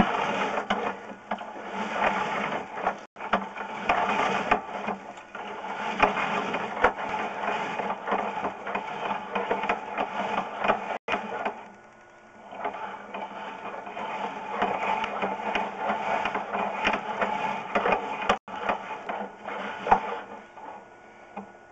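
Sewer inspection camera's push cable being pulled back out of the line and fed onto its reel, a continuous mechanical rattling clatter that eases briefly about twelve seconds in.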